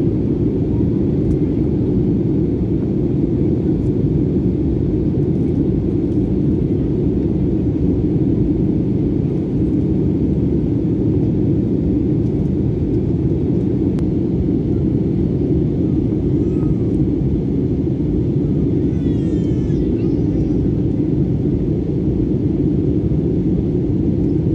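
Steady drone inside the cabin of an Airbus A320-family jet airliner in flight: engine and airflow noise, deep and unchanging.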